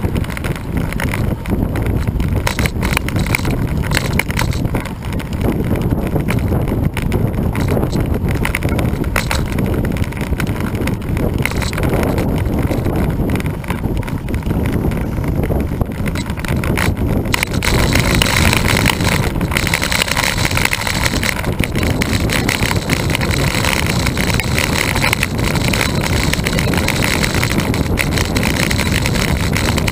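Wind rushing over the microphone of a camera on a moving road bike, mixed with tyre noise on asphalt, a steady low rumble with a hiss that turns brighter about seventeen seconds in.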